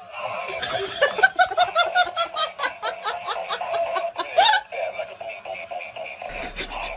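A person laughing hard in a rapid run of short bursts, about four or five a second, from about a second in until about four and a half seconds in.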